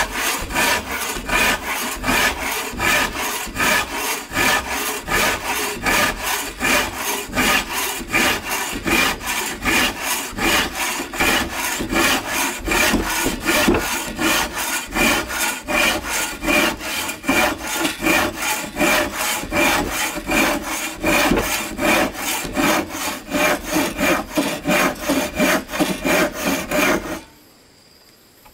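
Hand saw cutting through wood in steady back-and-forth strokes, about five strokes every two seconds, stopping suddenly near the end.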